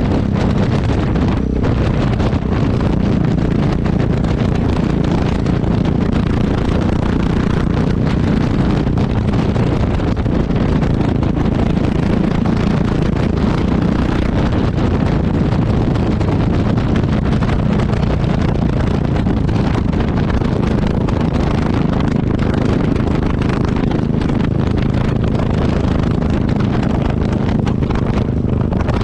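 Exhaust of a Yamaha XT660X's single-cylinder four-stroke engine running at a steady pace under way, picked up close to the exhaust, with wind rushing over the microphone.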